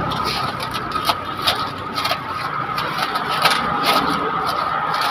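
Motorcycle tire being worked by hand on a tire-changer turntable: scattered short scrapes and clicks of rubber against the rim and machine, over a steady high whine and a vehicle-like hum in the background.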